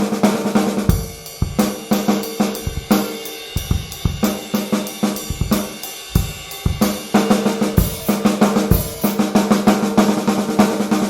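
A Pearl Masters Maple Complete 6.5x14 six-ply maple snare played fast and ringing wide open, with no muffling, on its stock coated batter head. About a second in, kick drum, hi-hat and cymbals join for a full drum-kit groove.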